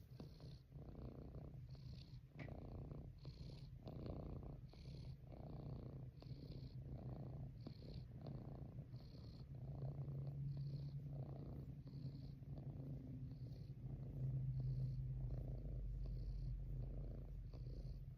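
Domestic cat purring steadily while being stroked, the purr swelling and easing in an even rhythm with each breath in and out.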